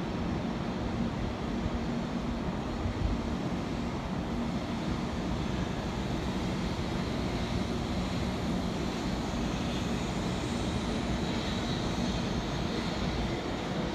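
Taiwan High Speed Rail 700T trainset pulling out of the station at low speed, running with a steady low hum over even rolling noise.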